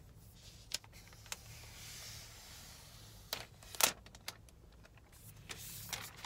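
Faint taps and clicks as an iPad Pro and its folio case are handled. There is a soft rustle about two seconds in, and a sharper pair of clicks near four seconds as the tablet comes out of the case.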